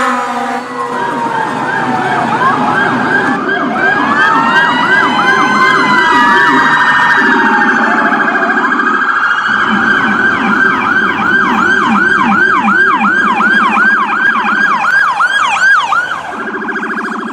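Electronic emergency-vehicle siren sounding loudly and changing through its tones: quick up-and-down yelps, then slower wails overlapping each other, then a steady fast yelp of about three sweeps a second from about ten seconds in.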